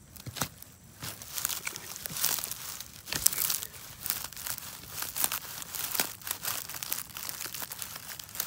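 Rustling and crackling of dry grass, pine needles and leaf litter being disturbed close to the microphone, in irregular bursts with a sharp snap about three seconds in.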